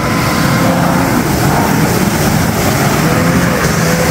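Off-road 4x4's engine running hard at fairly steady high revs under load as it climbs a muddy slope, its wheels spinning and throwing mud.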